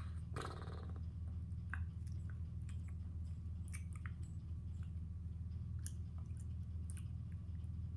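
Faint scattered crinkles and clicks of a paper tissue being handled, with a plastic toy horse pushed into it, over a steady low hum.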